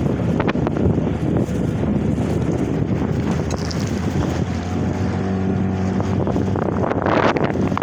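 Strong wind buffeting the microphone over a Mikatsu 9.9 hp outboard motor running on a small boat in rough water. The motor's drone comes through more clearly about halfway in, and a louder rush of noise comes near the end.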